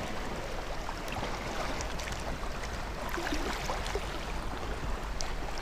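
Small waves of Lake Superior lapping and splashing against a rocky shoreline, with light irregular splashes over a steady wash, and breeze rumbling low on the microphone.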